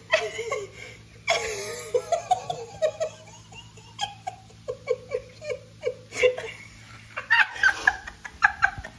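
Women laughing hard, with a run of rhythmic ha-ha pulses through the middle and fresh bursts of laughter near the start and end.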